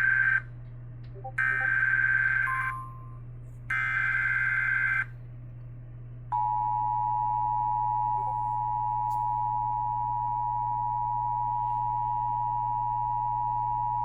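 Emergency Alert System SAME header: the end of one burst and two more short bursts of warbling digital data tones, about a second apart, followed by the two-tone attention signal, a steady dual tone held for about eight seconds. Together they announce a flash flood warning.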